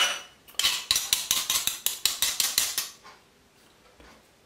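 Metal spoon scraping and pressing morcilla (blood sausage) across a slice of bread in quick repeated strokes, about five a second, stopping about three seconds in.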